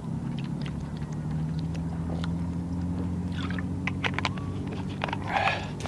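A person gulping a drink from a plastic bottle, with small clicks and swallowing noises, over a steady low engine hum.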